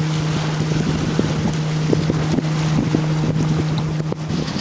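Wind buffeting the microphone and water rushing past a small sailboat under sail, with a steady low hum that cuts off near the end.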